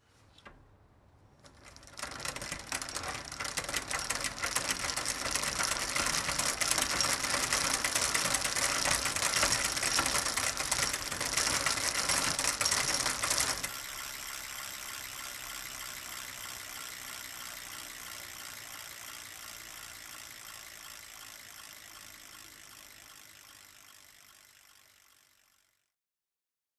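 Rapid, dense mechanical clicking, like a ratchet or turning gears, starting about two seconds in. About halfway through it drops sharply to a quieter level and then fades away.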